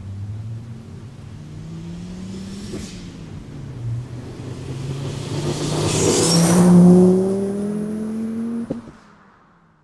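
Volvo 750R exhaust under hard acceleration, its engine note rising in pitch, dropping once with a gear change about three seconds in, then rising again. It grows loudest as the car passes close, about two-thirds of the way through, and cuts off suddenly near the end.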